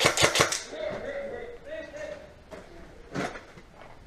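Airsoft gun firing a rapid string of shots, about seven a second, that stops half a second in. Another short shot burst comes just after three seconds, with faint voices in between.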